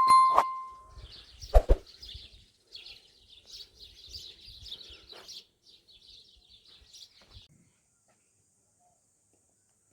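A metal object is struck once at the start with a short ringing clang, followed by a sharp knock a little later. Faint, scattered bird chirping continues until about three-quarters of the way through.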